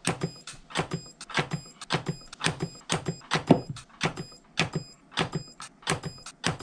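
kWeld capacitor-less spot welder firing pulse after pulse as hand-held copper probes weld nickel strip onto 32650 LiFePO4 cells: a sharp crack with each weld, about three a second at uneven spacing.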